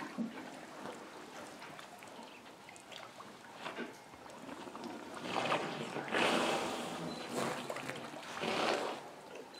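African elephants drinking at a waterhole, with water splashing and pouring from their trunks into their mouths and back into the pool. It comes in several louder splashy bursts, the loudest a little past the middle and again near the end.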